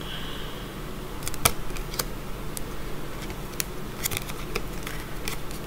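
Tarot cards being handled and moved off the deck by hand, giving a scattered series of light, sharp clicks and taps of card stock.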